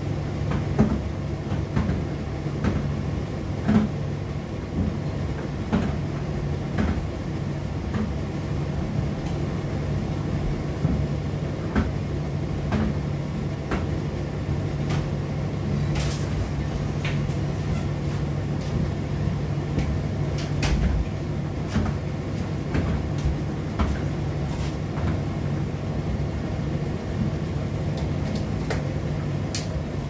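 Indesit IDC8T3 condenser tumble dryer running mid-cycle: a steady motor and drum hum, with irregular light knocks and clicks from the load tumbling in the drum.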